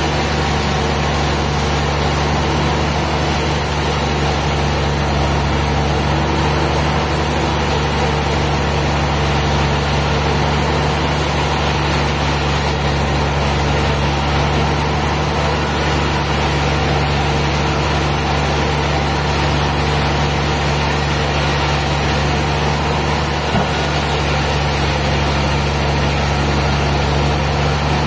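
An engine running steadily at one constant speed, with a deep hum and a hiss over it, and no change in pitch or load.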